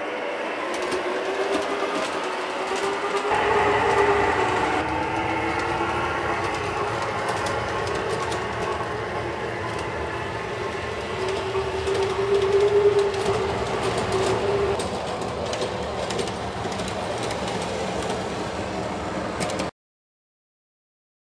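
O scale model CTA 'L' train running along its track, with a steady run, a motor whine that rises and falls and many small clicks. It cuts off suddenly near the end.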